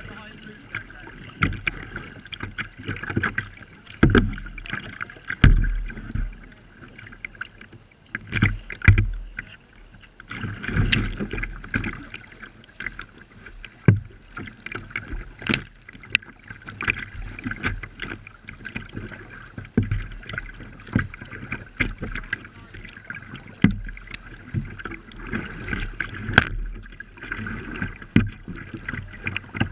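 Kayaks being paddled on a river, heard from just above the waterline at a plastic kayak's bow: water rushing and slapping against the hull, with irregular paddle splashes and knocks.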